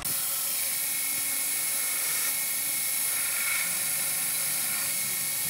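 Electric belt grinder running, its abrasive belt grinding a steel knife blade made from an old saw blade. A steady hiss with a thin, high whine that stays even.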